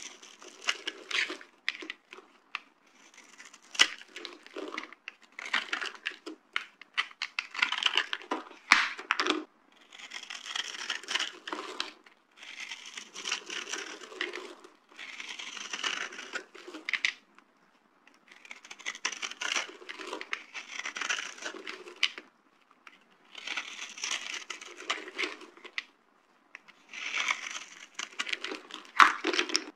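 Dry soap being crushed, a crisp crackling crunch that comes in spells of a second or two with short pauses between them.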